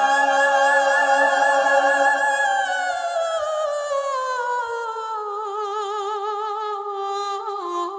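A woman's wordless sung note, unaccompanied: held steady on a high pitch, then sliding down over about two seconds and held on a lower note with a wide vibrato.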